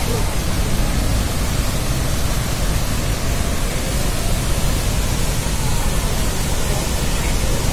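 Niagara's Horseshoe Falls pouring over the brink: a steady, deep rushing of falling water.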